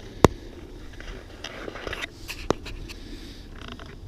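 Two sharp clicks about two seconds apart, with faint handling noise between, as the door's latch-handle parts are worked by hand.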